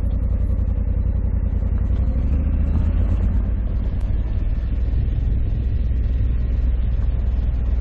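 A 2021 Honda Africa Twin 1100 DCT's parallel-twin engine running steadily under way on a dirt road, over a heavy low rumble.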